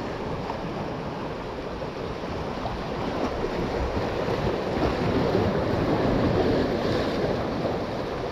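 Ocean surf washing against a rocky ledge, with wind on the microphone; the wash swells louder a little past the middle.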